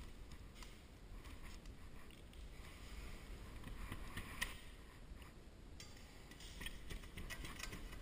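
Faint, irregular scratching and ticking of a utility knife blade cut along a cracked drywall tape joint in a textured ceiling, cutting out the failing tape. One sharper scrape comes about halfway through, and a run of quick ticks near the end.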